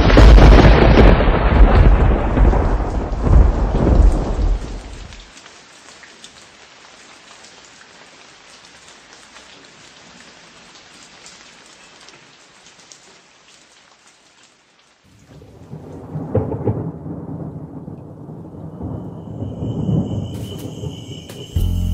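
Thunderstorm: a loud clap of thunder that rumbles away over about five seconds, then steady rain, then more rolls of thunder from about fifteen seconds in. Music comes in right at the end.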